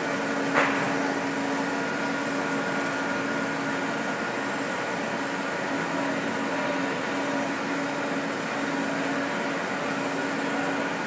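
Steady hum of a large Tacchi CNC lathe standing powered up, with two constant tones over a faint whir. A single sharp click about half a second in.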